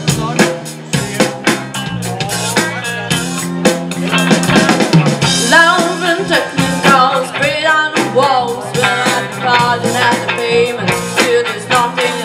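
Live rock band playing: a female singer over electric guitar, electric bass and drum kit.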